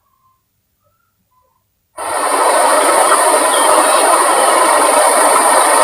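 A few faint short chirps over near silence. About two seconds in, a loud, steady insect chorus cuts in abruptly: a high-pitched whine over a dense hiss.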